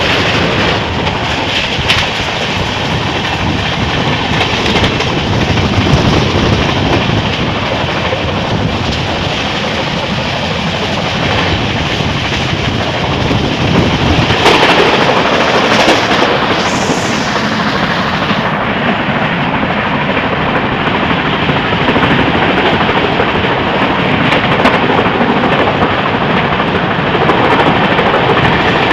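Train running along the track: a loud, steady rumble of wheels on rails, with a brief louder surge about fourteen seconds in.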